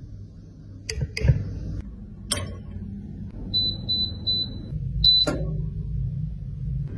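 A few sharp clinks of a metal spatula against a glass beaker. Then a digital appliance control panel beeps four times in quick succession as its buttons are pressed, followed by a slightly longer beep, over a low steady hum.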